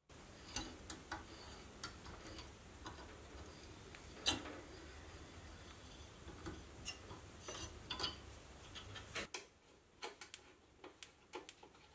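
Faint, scattered small metal clicks and ticks of hand work on a steel hook lug: a hand die turned to cut an M5 thread, then the hook being fitted at a steel pegboard. A low steady hum sits under the first part and drops out about nine seconds in.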